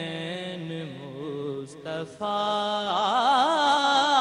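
A young man singing a naat solo in long, wavering held notes, with a short break about two seconds in.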